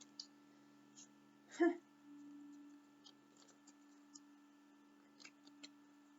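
Faint scattered clicks and taps of tarot cards being handled on a table. About a second and a half in there is one short vocal sound that falls in pitch.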